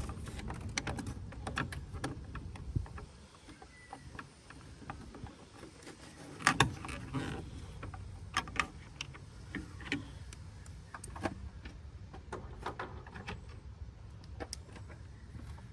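Irregular small clicks and taps of a screwdriver bit on an extension fumbling at a screw in a car's headlamp housing, with a louder clatter about six and a half seconds in.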